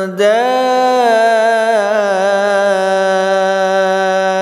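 A male Quran reciter chanting in measured murattal style, holding one long vowel on a steady pitch after a slight rise and waver at the start. It is the prolonged 'ā' of 'dābbah', stretched as a six-count madd.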